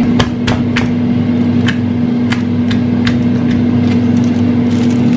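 Stone pestle pounding red onions in a granite mortar: irregular sharp knocks, roughly two a second, over a steady hum.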